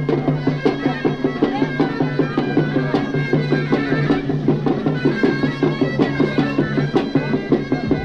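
Moroccan folk music from a late-1960s field recording: a sustained, reedy wind-instrument line over a steady, fast drum beat of about four strokes a second.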